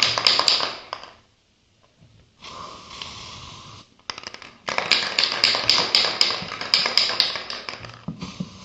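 Close-up rustling and crackling handling noise full of small clicks, in two long bursts. Between and after the bursts there is a steadier hiss.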